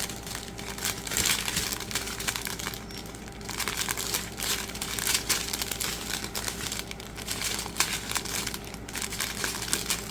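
Small plastic bags of diamond-painting drills crinkling as they are handled and sorted, a continuous irregular crackle.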